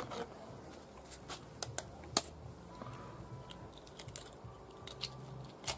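A hen's egg tapped and cracked open with a knife blade: a few scattered sharp clicks and cracks of eggshell, the loudest a little over two seconds in and another near the end.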